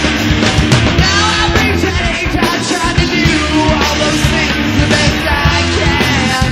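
Loud rock music from a live trio band: bass guitar and drum kit playing with a steady beat.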